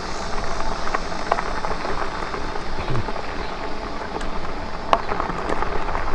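Lectric e-bike tyres rolling over a bumpy unpaved dirt road: a steady crunching hiss with scattered small clicks and rattles, and one sharper knock about five seconds in.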